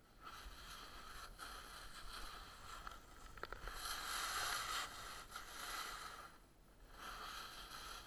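Snowboard sliding and scraping over snow, a hiss that swells and eases, loudest about four seconds in, with a short lull a little before the end.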